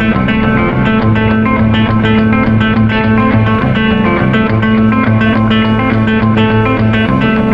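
Background music led by guitar: a steady stream of plucked guitar notes over a sustained bass line.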